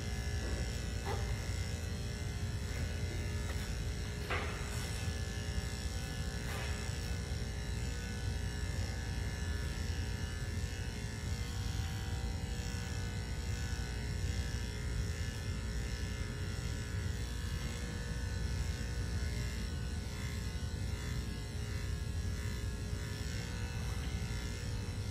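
Electric dog-grooming clippers running with a steady buzz as they trim the dog's chest hair.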